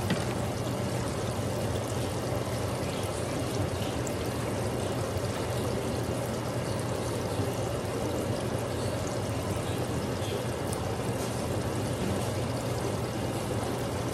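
Fish deep-frying in a skillet of hot oil: a steady sizzle and bubbling at an even level.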